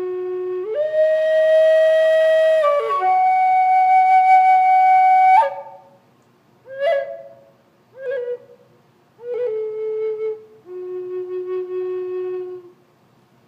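Native American flute playing a slow solo melody: long held notes that step up and then drop, a few short separated notes, and a final long low note that ends near the close.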